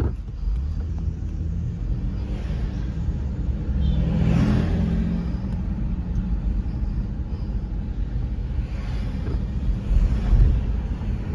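Road and engine noise from inside a moving car: a steady low rumble, with a louder swell about four seconds in.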